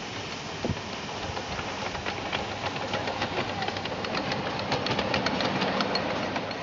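Miniature live-steam locomotive hauling a loaded passenger car past on a ride-on track: a rapid clicking of wheels on the rails with the engine's steam exhaust, growing louder as it comes close.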